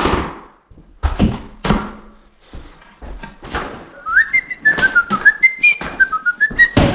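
A few sharp knocks, then from about four seconds in a person whistling a short tune, with more quick knocks mixed in.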